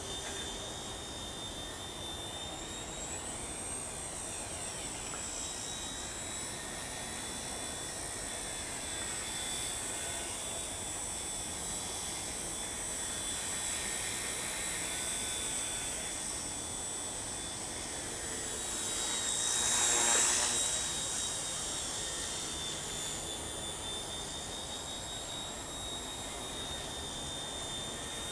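WLtoys V911S micro RC helicopter in flight, its small electric motor and rotors giving a steady high whine on a nearly spent battery. The whine grows louder for a moment about twenty seconds in, then settles back.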